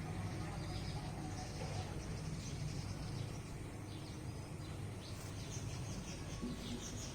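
Sparrows chirping in short, scattered calls over a steady low background hum.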